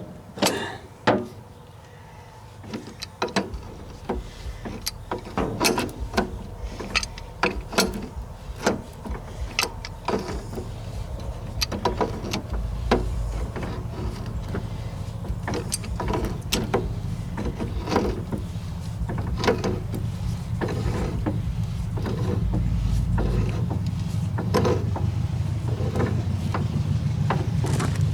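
Metal tools and parts clicking and knocking irregularly during hands-on work refitting a skid steer's hydraulic cylinder, over a low steady rumble that grows louder about ten seconds in and again near the end.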